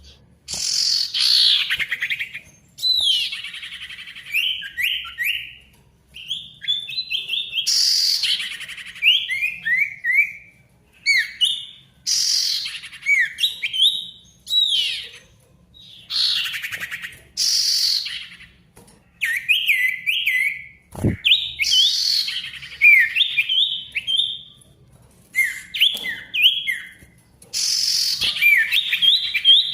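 An iora (sirtu, or cipoh) in full, busy song: loud phrases of quick falling whistles alternate with rapid runs of short stepped notes, with brief pauses between bursts. A single short knock sounds about two-thirds of the way through.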